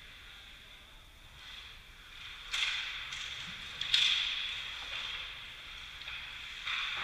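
Ice hockey skate blades scraping and carving the ice, with two sharp scrapes about two and a half and four seconds in, each fading over about a second.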